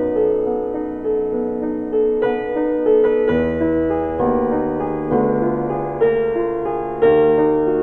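Background piano music: a gentle melody of held notes over a bass line, new notes struck about once a second.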